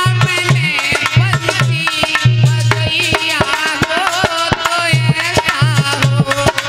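Indian folk devotional music: a hand drum plays a fast rhythm of sharp strokes and deep, pitch-bending bass strokes under a wavering melody line.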